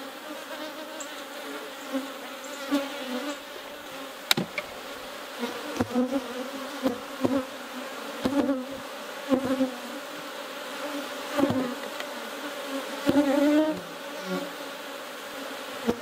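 Honeybees buzzing around open hives: a steady hum with single bees droning close past and fading. Several sharp wooden knocks come as hive boxes are handled and set down.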